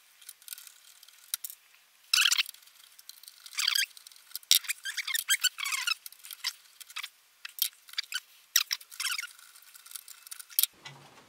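A screwdriver backing screws out of a TRS-80 Model 4 motherboard: a string of short, irregular squeaky scrapes and clicks as each screw turns.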